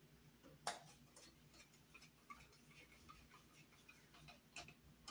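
Faint, scattered small clicks and ticks of a screwdriver and copper wire against a light fixture's brass terminal screw as the wire loop is closed and tightened, one click a little sharper under a second in.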